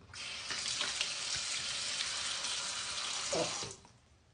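Water running from a tap into a bathroom sink, turned on abruptly and shut off after nearly four seconds.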